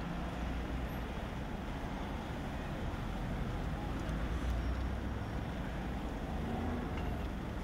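Steady low rumble of road traffic at a busy intersection.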